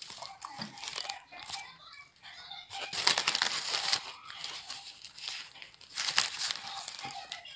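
Crinkling and rustling of a doner kebab's wrapper as it is handled and pulled back, loudest about three seconds in and again near six seconds.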